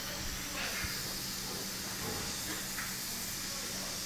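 Steady hiss with a faint low hum underneath.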